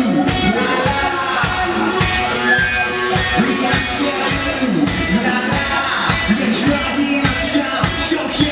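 Live indie rock band playing: electric guitar, keyboards and a steady drum beat, with a singer's voice over them.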